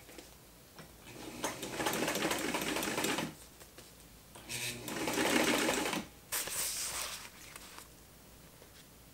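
Electric Singer sewing machine top-stitching a bound seam on nylon fabric, running in short bursts of one to two seconds with brief stops between.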